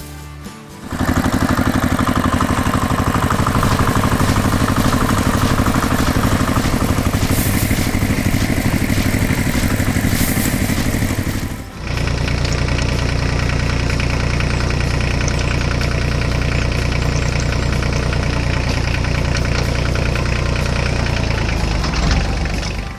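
Heavy farm machine engine running steadily. About halfway through, a cut switches it to a deeper, lower engine drone.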